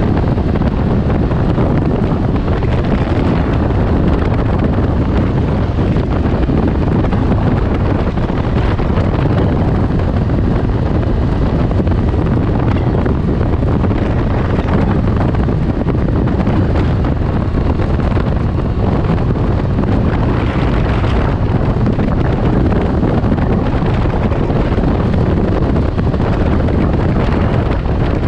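Steady wind rumble buffeting the action-camera microphone while riding a Can-Am Ryker Rally three-wheeler at an even cruising speed, with the machine's engine and tyre noise blended underneath.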